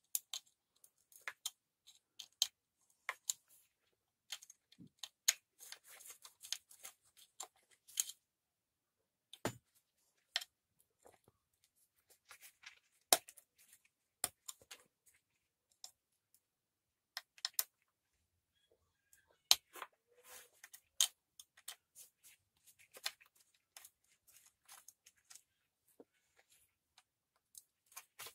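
Scattered light metal clicks and ticks of a small key working the muffler screws of a petrol brush cutter as they are being unscrewed.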